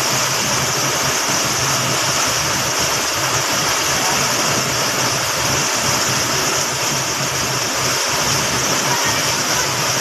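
Waterfall pouring steadily with a constant, even rush of falling water.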